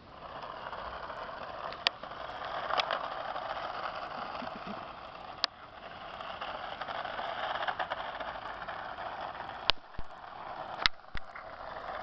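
Small RC drift toy car running: a steady whirr of its motor and wheels, with sharp clicks and knocks scattered through, stopping near the end.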